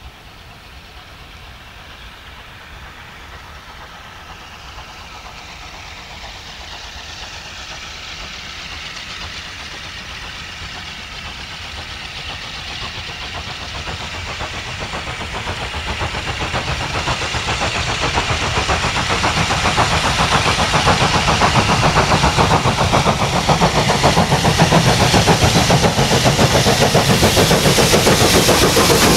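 LSWR T3 class 4-4-0 steam locomotive No. 563 working a train towards the listener, its chuffing getting steadily louder and turning into fast, even exhaust beats as it draws level near the end.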